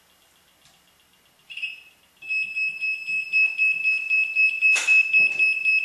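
Small loudspeaker driven by a 555 timer oscillator circuit. It starts with faint ticking pulses, then about two seconds in, once turned up, it gives a loud, shrill, steady electronic tone whose loudness wavers several times a second; this is the sign that the 555 is oscillating. A sharp click comes about three-quarters of the way through.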